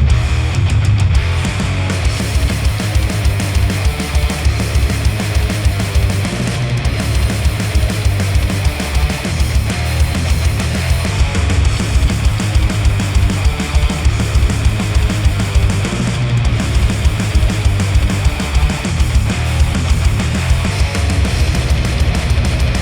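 Loud heavy rock music with a dense, driving beat, played back through a headphone and picked up by microphones at the earcup.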